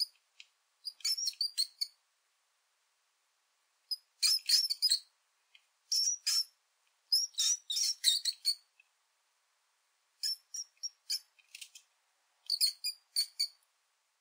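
Mouse-squeak sound effect: bursts of rapid, high-pitched squeaks, about seven clusters separated by short silences.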